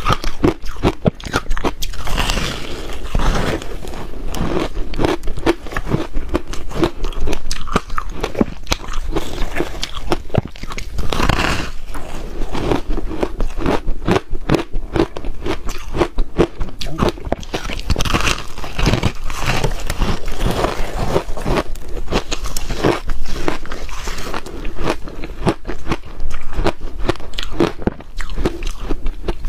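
A person biting and chewing mouthfuls of frozen crushed ice close to a clip-on microphone: a dense, continuous run of crisp crunches and cracks.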